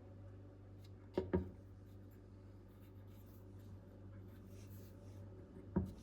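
Three short knocks, two in quick succession about a second in and one near the end, over a low steady hum.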